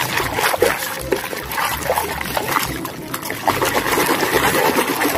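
Water trickling and splashing over a muddy plastic toy as it is washed.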